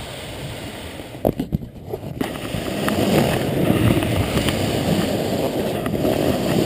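Cardboard diaper box with a toddler inside sliding across the floor, a steady scraping rush that gets louder about two seconds in, with a few light knocks.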